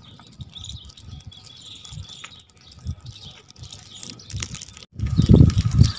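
Wood fire burning in a pit in the ground, with faint scattered crackles and pops. About five seconds in, after a sudden break, a loud, irregular low rumbling noise cuts in.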